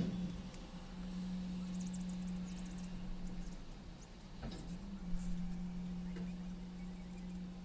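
A steady low hum that wobbles briefly in pitch about halfway through, with a cluster of faint high squeaks about two seconds in.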